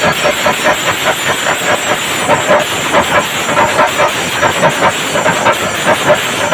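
Chenda melam: a large ensemble of chenda drums beaten fast with sticks in a dense, driving rhythm, with elathalam hand cymbals adding a steady clashing hiss.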